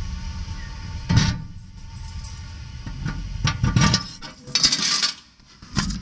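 Bumps, clinks and scraping as a mailbox slot is worked and something is pushed through it and dropped inside, heard from within. There is one sharp knock about a second in, a cluster of rattles and scrapes between about three and five seconds, and another knock near the end.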